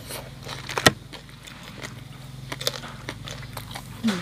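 Low steady hum of a motor running nearby, with one sharp click about a second in and a few faint clicks later.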